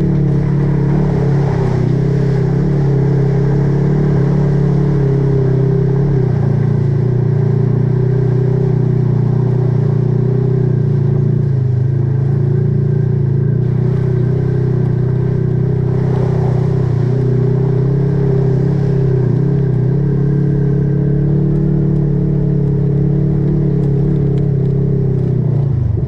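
Off-road vehicle engine running loud and steady as it drives along a dirt trail.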